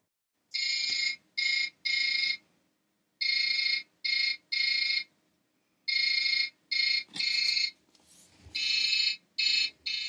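Driven toy dump truck's built-in sound effect, played through its small speaker when the cab roof is pressed. Electronic horn-like tones come in sets of three (long, short, long), four sets in a row.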